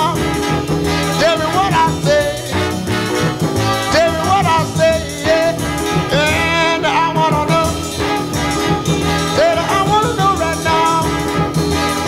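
Upbeat rhythm-and-blues background music with brass and a steady beat; no words are sung.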